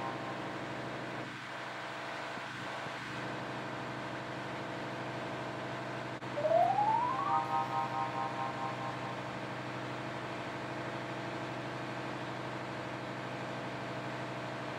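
Steady hum of engine-room machinery running, made up of many steady tones. About six seconds in, a rising electronic sweep settles into a held chord and fades out over about two seconds.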